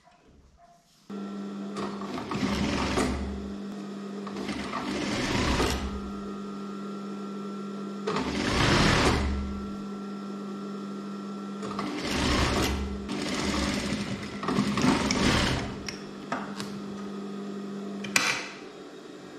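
Juki industrial single-needle sewing machine: its motor comes on about a second in and hums steadily, with five short runs of stitching as the fabric is fed through. Near the end the hum stops with a click.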